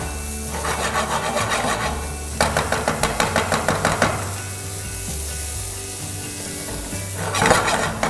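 Wooden spoon scraping and stirring vegetables and shrimp in a frying pan, in quick strokes with a short break about two seconds in. Then the food sizzles on its own, and the stirring strokes start again near the end.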